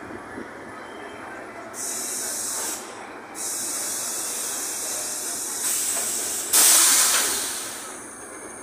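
Urquiza line Toshiba electric train coming to a stop at the platform, its compressed air hissing in several bursts. The loudest, longest hiss comes about six and a half seconds in and fades away as the train halts.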